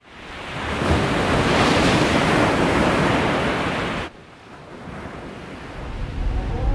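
Sea waves and wind, a loud rushing noise that swells up over the first second and cuts off abruptly about four seconds in. A much quieter low rumble follows and grows toward the end.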